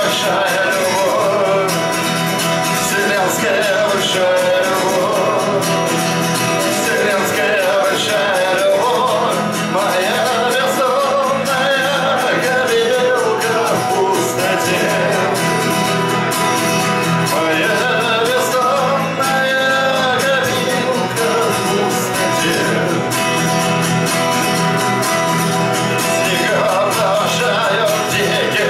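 A man singing to his own acoustic guitar, strumming steadily, in a live performance.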